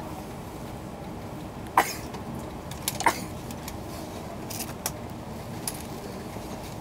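Steady low hum inside a stopped E2 series Shinkansen carriage, broken by two short sharp sounds, the first under two seconds in and the second about three seconds in, and a few fainter clicks after them.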